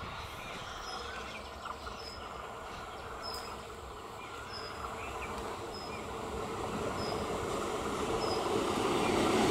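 ICF Medha electric multiple unit train approaching, the rumble of its wheels on the rails growing steadily louder. A short high chirp repeats about once a second behind it.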